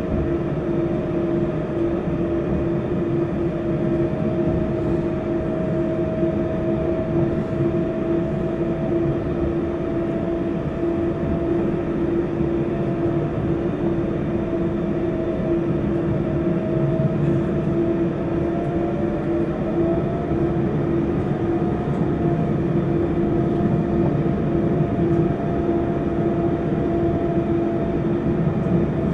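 Inside an Auckland AM class electric multiple-unit train running steadily through a tunnel: a constant rumble with a steady hum and a higher whine that drifts slightly in pitch.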